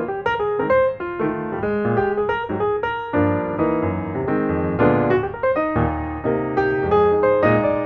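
Background piano music, a continuous flow of notes and chords.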